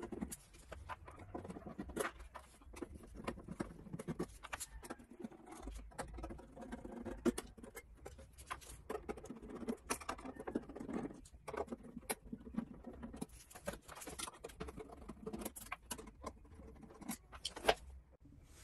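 Sped-up sound of the inverter's cover screws being worked loose by hand: a fast, irregular patter of small clicks and scrapes.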